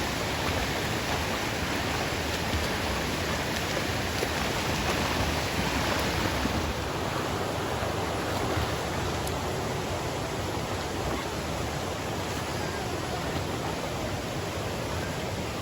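Forest stream water rushing steadily over rocks, heard close by, a little duller after about six seconds.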